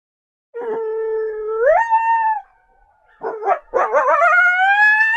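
Coyote howling: a held note that steps up in pitch about a second in, a short pause, a couple of quick yips, then a long wavering howl that rises and holds.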